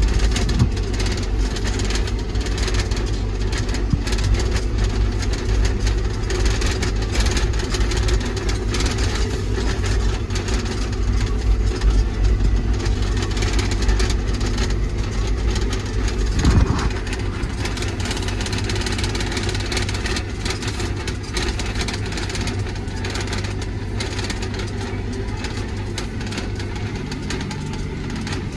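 John Deere tractor's diesel engine running steadily, heard from inside the cab while driving over rough ground, with a single sharper knock about two-thirds of the way through.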